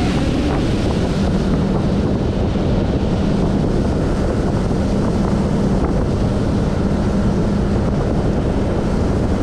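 Speedboat outboard motor running steadily at speed, a constant hum under heavy wind buffeting on the microphone and the rush of water past the hull.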